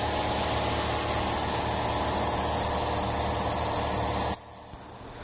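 CNC-converted Grizzly G0704 mill cutting a metal part with an end mill under flood coolant: its belt-driven 2.2 kW water-cooled spindle motor running steadily with coolant spraying. About four seconds in, the sound cuts off abruptly to a much quieter steady hum.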